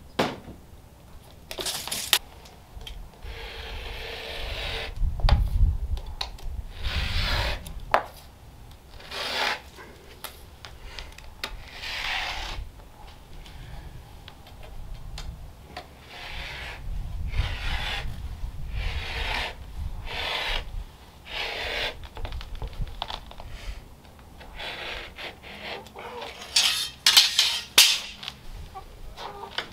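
Utility knife scoring the paper face of a sheet of green moisture-resistant drywall along a drywall T-square: a string of scraping strokes, each a second or two long. A few sharp knocks come near the end.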